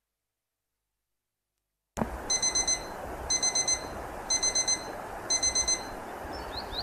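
Digital alarm clock beeping in quick groups of four high beeps, one group about every second, starting about two seconds in after dead silence.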